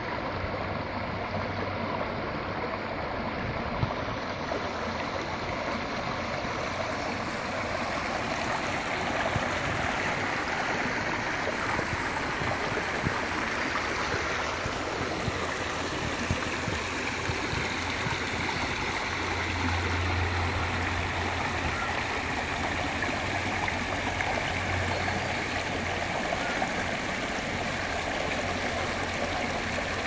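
Creek water running steadily over a small rocky cascade into a pool.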